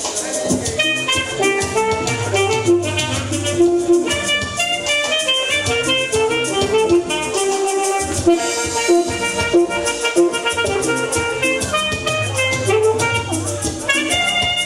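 Instrumental music: quick runs of short melodic notes over drums, with no singing.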